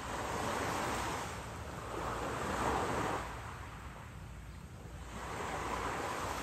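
Small waves washing onto the shore of a calm sea, surging and falling back three times, each swell lasting about a second, over a low steady rumble.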